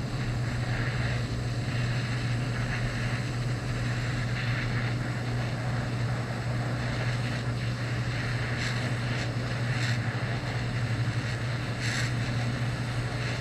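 Small handheld gas torch lighter burning steadily with the gas turned up: a constant rushing noise with a low hum under it, heating a drill-rod screw for hardening.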